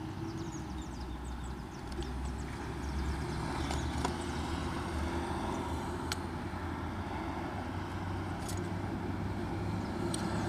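A motor vehicle's engine running with a steady low rumble, with a few sharp clicks scattered over it.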